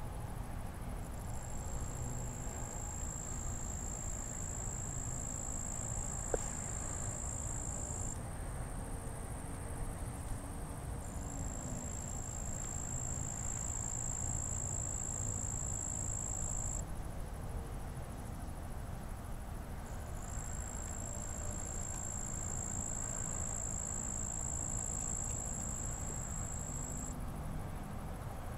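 An insect singing a steady, high-pitched trill, held for about six seconds at a time, three times with short breaks between, over a low steady rumble. A second, fainter trill sits just above it in the first ten seconds.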